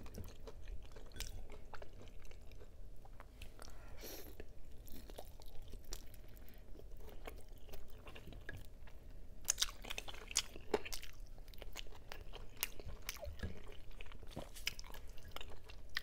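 Close-miked chewing and mouth sounds of a person eating braised adobo pork-rib meat: wet smacks and clicks at an irregular pace, with a denser run of louder ones about ten seconds in.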